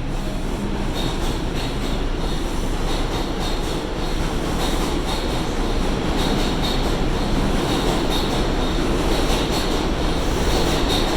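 New York City subway car running on the IRT Seventh Avenue local, with the rumble and clatter of the wheels on the track, and a constant high-pitched beep repeating at an even pace over it.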